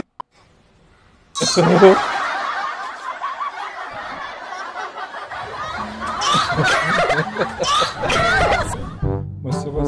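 A baby laughing and giggling, with an adult laughing along, starting about a second and a half in after a brief silence. Near the end, brass music comes in.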